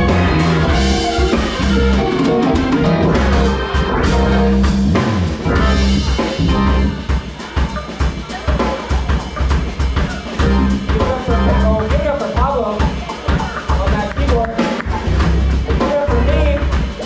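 Live band playing: drum kit with bass drum and snare hits under electric guitars, a steady low bass line and keyboard.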